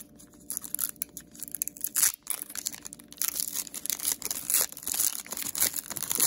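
Foil booster-pack wrapper being torn open and crinkled by hand: scattered crackles at first, a sharp snap about two seconds in, then a dense run of crackling.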